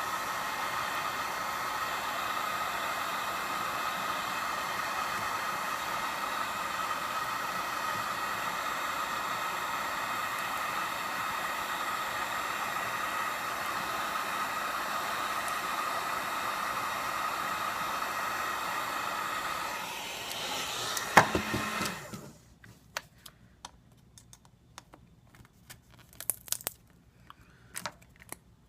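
Hot-air gun blowing steadily to soften the glass adhesive. About twenty seconds in it fades, with a sharp click, and cuts off, leaving faint scattered clicks and taps.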